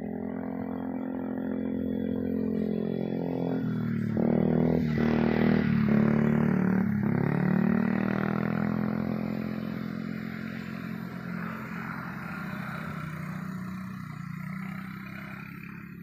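A motor vehicle's engine passing by: it grows louder to a peak around the middle, its pitch shifting and dropping past the peak, then it fades away.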